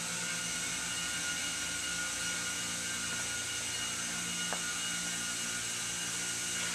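Steady drone of textile mill machinery: a constant high hiss over a low hum with faint steady tones, unchanging throughout.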